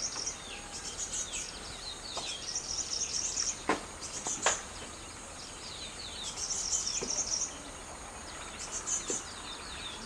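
Small birds chirping and twittering in quick high bursts, with short downward-sweeping call notes, over a steady high insect-like hiss. Two sharp clicks sound a little before and just after the middle.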